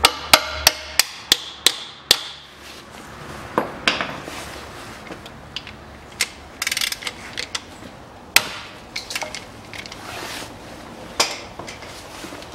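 A hammer tapping a hex socket on an extension into a rear differential drain plug: about six sharp metal knocks in the first two seconds. Scattered knocks and a short run of quick clicks follow as the tool is worked on the plug.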